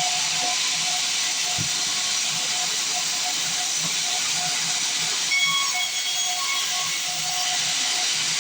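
Band sawmill blade cutting through a log, a steady hissing rasp of the saw in the wood.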